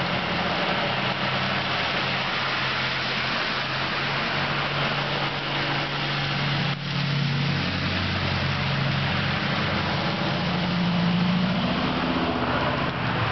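Cars driving through deep water on a flooded street: engines running low and steady under a continuous hiss of spray, rain and running water.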